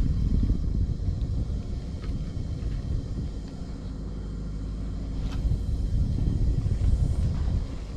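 Low, rising and falling rumble over a steady engine drone, with a few faint knocks.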